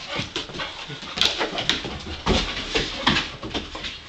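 A yellow Labrador retriever puppy moving about on a wooden porch deck: irregular short clicks and knocks of paws and steps on the boards.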